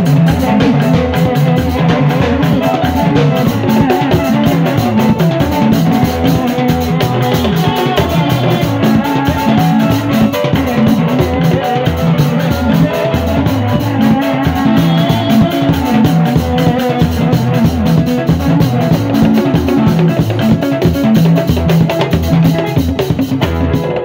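Loud band music: a stand of three hand drums and a drum kit played with sticks keep a fast, steady beat over a low bass line.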